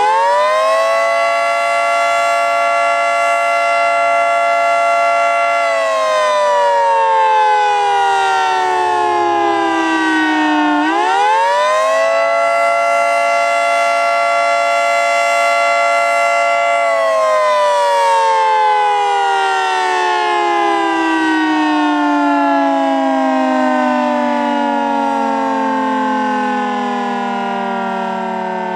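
Federal Signal 2T22 dual-tone rotating warning siren sounding a wail, the Attack signal. Its two-tone chord winds up and holds for about five seconds, slides down, climbs back up and holds again, then a little past halfway begins a long, slow wind-down.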